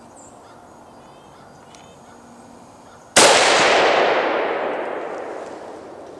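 A single gunshot, fired at a deer, about three seconds in. The sharp report is followed by a long echo that fades away over about three seconds.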